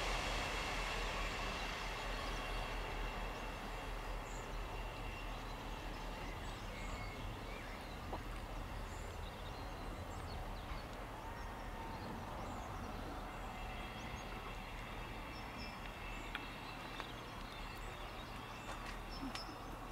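Class 158 diesel multiple unit running away and slowing into a station. Its low engine rumble fades over the first several seconds, then holds faint and steady. Birds chirp now and then.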